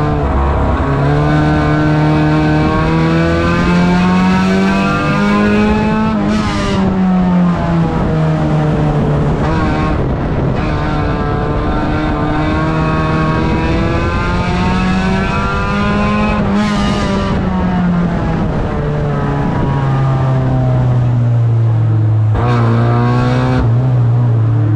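Engine of a 1600-class banger race car, heard from inside the stripped cabin, revving up and easing off in two long swells, then settling to a lower, steadier note near the end. A few brief hissing rushes break in along the way.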